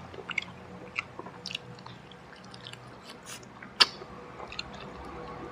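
Close-up chewing and biting on a piece of crispy fried chicken, gnawing near the bone. Small crackles and clicks are scattered throughout, with one sharper crack a little under four seconds in.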